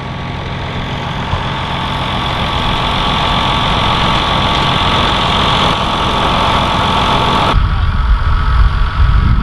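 Fendt 716 Vario tractor engine working steadily while ploughing, growing louder as it approaches. Near the end the sound changes abruptly to a deeper low rumble.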